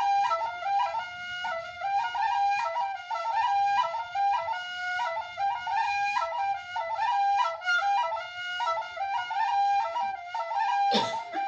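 Background music: a flute playing a quick melody of short notes, with one brief knock near the end.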